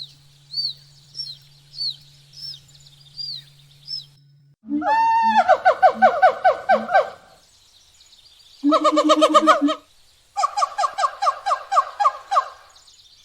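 Bird calls: a run of short high chirps, each dropping in pitch, about two a second, over a faint low hum. From about four and a half seconds in come three loud, rapidly pulsing calls from a larger bird, two long and one short.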